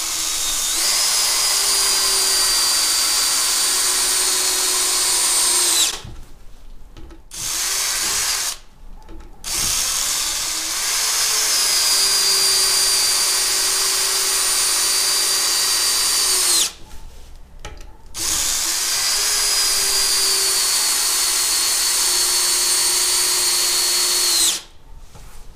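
Bosch GSB 18V-21 (GSB 180-LI) 18 V cordless drill driver in first gear driving three 6 × 100 mm wood screws into a timber beam. It is a steady motor and gearbox whine in three runs of about six seconds each, each cutting off sharply when the screw is home, with a short burst between the first and second. The pitch sinks slightly through each run.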